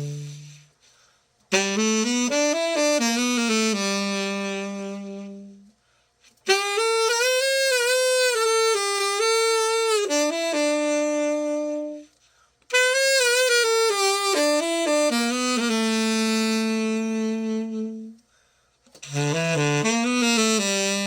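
Yamaha YTS-61 tenor saxophone played solo in slow melodic phrases with vibrato on some held notes, in four phrases separated by short breath pauses.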